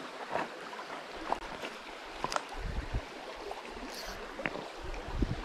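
Small creek running over stones, a steady rush of water, with scattered light clicks and a couple of spells of dull low thumps around the middle and near the end.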